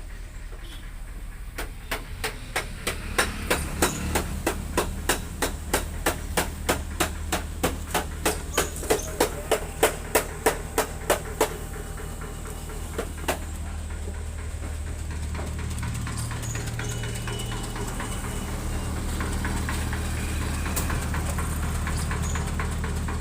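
A fast, even series of sharp knocks, about three a second, that stops after roughly ten seconds, with one more knock shortly after. A steady low hum runs underneath and swells a little near the end.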